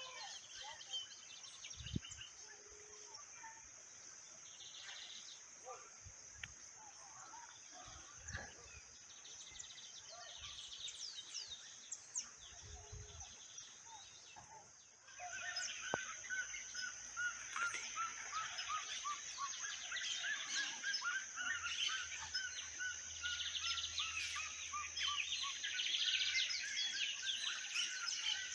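Several wild birds chirping and calling over a steady high-pitched buzz. About halfway the sound jumps louder, and a long run of short repeated notes falls slowly in pitch.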